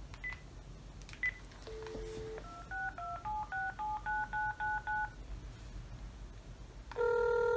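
Cordless phone handset placing a call. A few short key beeps and a brief dial tone, then about ten quick touch-tone keypad beeps as a number is dialed, and about seven seconds in the ringback tone starts, louder than the keypad beeps, steady for about two seconds.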